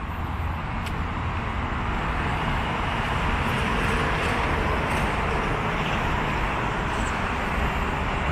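Street traffic: a steady hiss of passing cars' tyres and engines, swelling over the first few seconds and staying up.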